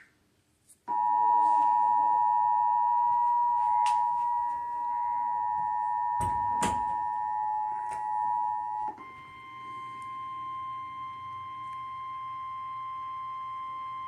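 Emergency Alert System two-tone attention signal on a cable TV alert: two steady tones sounding together for about eight seconds. It is followed by a single, quieter, slightly higher steady tone. There are a few sharp clicks midway.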